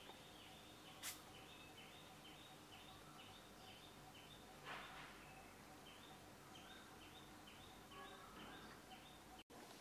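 Near silence: faint outdoor ambience with a high chirp repeating about three times a second, one sharp click about a second in and a short rustle near the middle.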